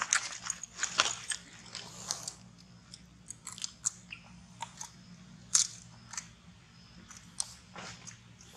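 Long-tailed macaque biting and chewing crunchy fruit close by: irregular sharp crunches, coming thick and fast for the first two seconds or so, then more scattered.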